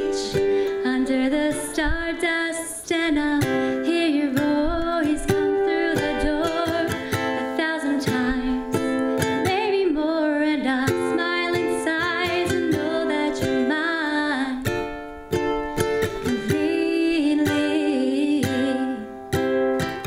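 A woman singing a song while strumming a ukulele in a steady rhythm.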